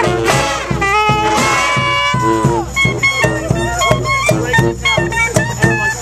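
Marching brass band playing live: a saxophone holds a long high note that falls away about two and a half seconds in, then the band plays short, punchy chords over a steady beat.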